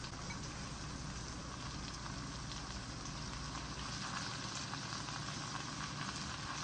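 Eggs, bell peppers and sun-dried tomatoes frying in oil in a pan on low heat: a soft, steady sizzle.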